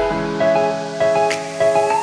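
Background music: a melodic tune of held notes.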